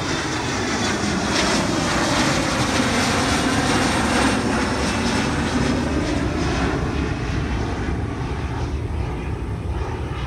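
Twin General Electric CF34 turbofans of an Embraer E175 airliner climbing out after takeoff, passing overhead. A loud, steady jet rumble builds to a peak a few seconds in, then slowly fades as the plane draws away.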